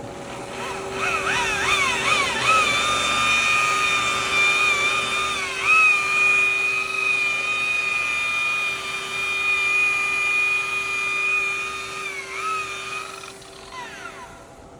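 Electric buffer with a wool pad polishing car paint: the motor's whine climbs in a few quick surges, then holds steady with two brief dips in pitch, and winds down near the end.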